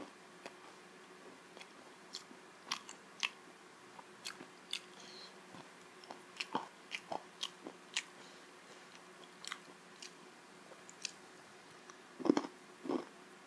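Close-up chewing and biting of crisp fried syaphaley, the Nepali-Tibetan fried meat-filled bread, with scattered sharp crunchy clicks. The loudest bites come near the end.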